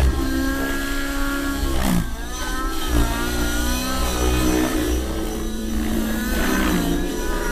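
A radio-controlled helicopter's O.S. 105 two-stroke glow engine running at high revs, its pitch swinging up and down as the helicopter is thrown through low aerobatic manoeuvres. There are brief sharp sounds about two and three seconds in.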